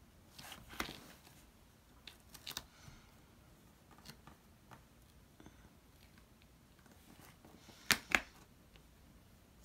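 Weeding hook scratching and picking at glitter heat transfer vinyl on a cutting mat: scattered short scrapes and crackles, with two sharp clicks in quick succession near the end.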